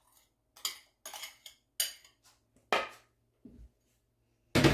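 Metal spoon scraping and clinking against a bowl's rim as melted butter is scraped out into a plastic mixing bowl: a string of short clicks and scrapes, then a louder knock near the end.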